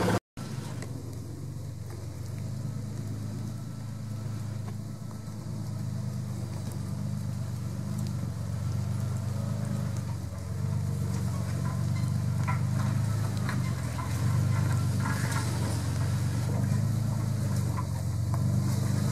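An off-road 4x4's engine running at low revs, wavering slightly and slowly growing louder as the vehicle crawls. There are a few light clicks and knocks in the second half.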